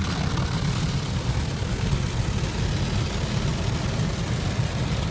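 Automatic car wash heard from inside the car: the rotating bristle brushes and water scrubbing over the bodywork and windows make a steady rushing, swishing noise over a low rumble.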